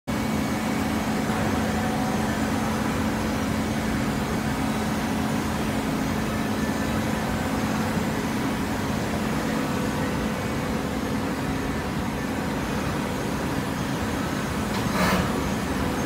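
A hydraulic horizontal baler running with a steady mechanical hum. About a second before the end there is a brief hiss.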